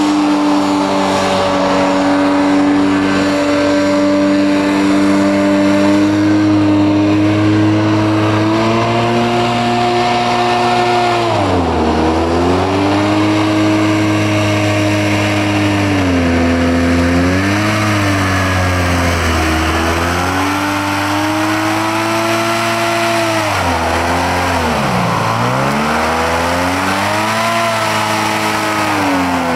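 Hovercraft's Rotax 503 twin-cylinder two-stroke engine running hard. Its revs fall and climb back about four times as the throttle is eased off and reopened.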